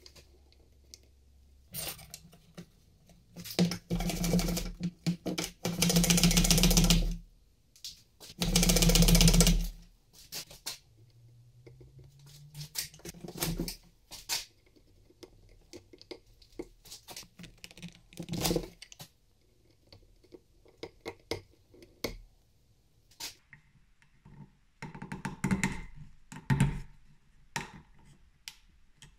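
Metal bench plane, laid on its side, trimming the end of a small wooden boxing strip in a few long planing strokes in the first third. After that come scattered light wooden clicks and taps as the strip is handled and test-fitted into a notch in the beech plane body.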